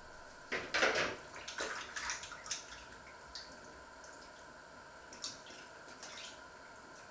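Irregular splashes and knocks of things being handled in a kitchen sink: a quick flurry in the first few seconds, then a few single ones.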